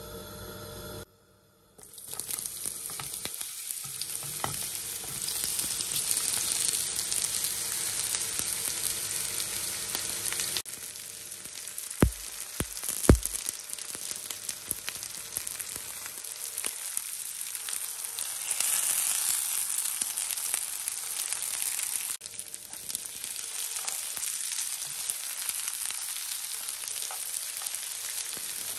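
Zucchini strips sizzling in hot olive oil in a frying pan: a steady frying hiss that starts about two seconds in. Two sharp clicks stand out about twelve and thirteen seconds in, and tongs turn the slices near the end.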